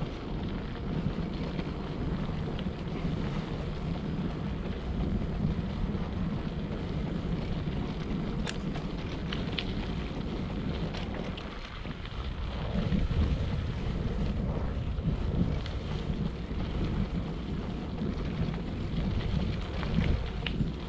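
Wind rushing over the microphone of a moving bike: a steady deep rush, with a few sharp clicks about eight and nine seconds in and again near the end.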